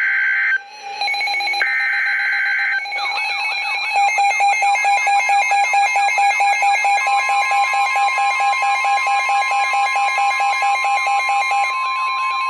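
Emergency Alert System tones from a weather radio: the last harsh, buzzy bursts of the SAME data header, then a loud alarm. The alarm is a tone pulsing about four to five times a second under warbling, sweeping tones, and a steady pure tone, the weather radio warning tone, joins about seven seconds in.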